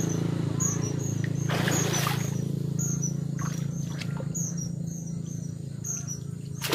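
Shallow muddy water splashing once, about two seconds in, as a person wading reaches into it for a submerged mesh fish trap, then lighter water sounds as the trap is handled. Under it runs a steady low hum, with short high chirps repeating about twice a second and a sharp knock at the very end.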